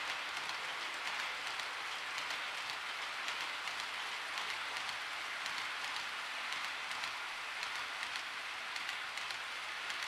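Model freight train's wagons rolling past on the track: a steady hiss of metal wheels on rail with faint scattered clicks, as a rake of JNR Chiki 7000 rail-carrying flat wagons goes by.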